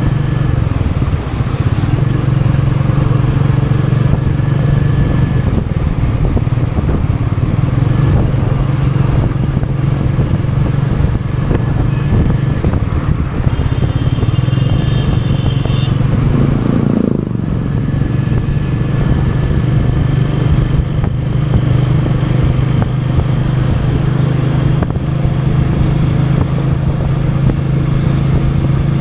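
Royal Enfield Meteor 350's single-cylinder engine running steadily under way at an easy city pace. A little past halfway the engine note briefly drops and then picks up again.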